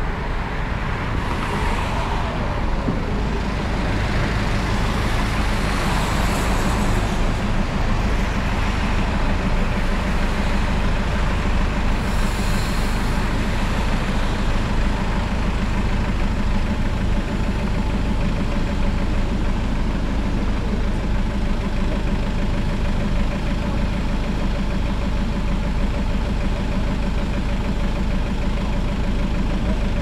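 Bus engine running and road noise heard from inside a moving bus: a steady low hum with a few brief hissing rushes in the first half.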